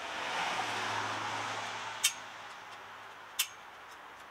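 A vehicle passing on a nearby street, its noise swelling and fading with a low hum over the first two seconds or so, followed by two sharp clicks.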